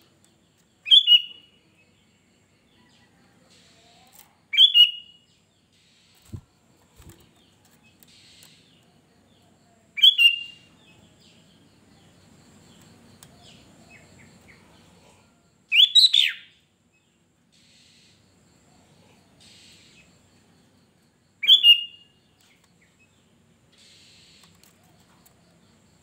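Sooty-headed bulbul (kutilang) giving five short, loud calls, one about every five seconds, with two faint knocks between the second and third.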